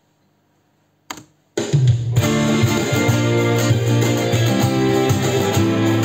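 Acoustic guitar being played, chords ringing, coming in about a second and a half in on the song's D minor intro after a brief click.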